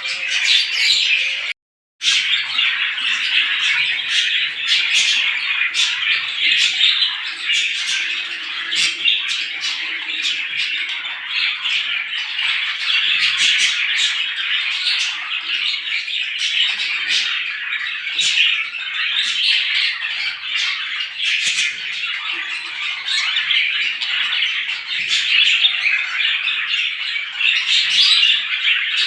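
Many small birds chirping and squawking together in a dense, continuous chorus of overlapping calls. The sound cuts out completely for a split second about two seconds in, then resumes.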